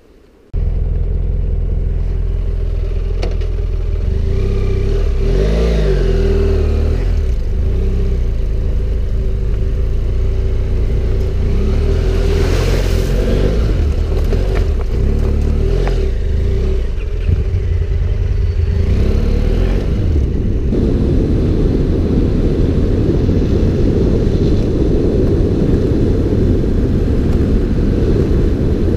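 Adventure motorcycle engine running while riding, under heavy wind rumble on the microphone; the engine note rises and falls a few seconds in, and the sound comes in suddenly at the start.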